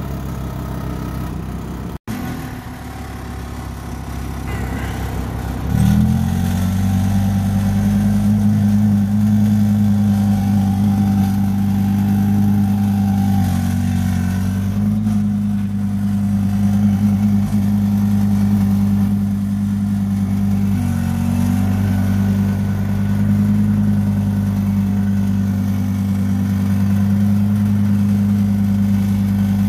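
Audi R8 V10 Performance's naturally aspirated 5.2-litre V10 running at a standstill. About six seconds in it steps up into a louder, steady idle with a deep, even drone that holds, wavering briefly twice.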